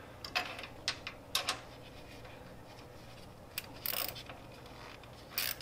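Socket ratchet on a universal joint clicking in a few short, irregular runs as it loosens a 13 mm nut holding the fuel pump on an air-cooled VW Beetle engine.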